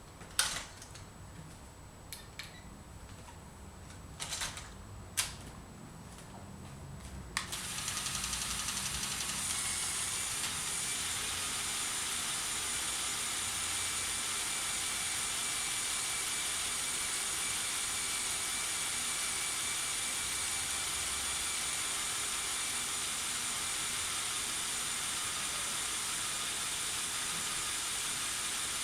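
A few sharp mechanical clicks, then the motorised pneumatic system of a LEGO Technic RC crane truck starts about seven seconds in and runs with a steady whir and hiss as it works the outriggers.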